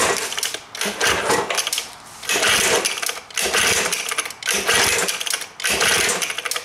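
Two-cylinder two-stroke engine of a 1971 Evinrude 9.5 hp outboard being turned over by its pull-start rope about six times, roughly once a second. Each pull is a burst of fast clicking and whirring as the engine spins freely with its spark plugs out, to work fogging oil around the cylinders.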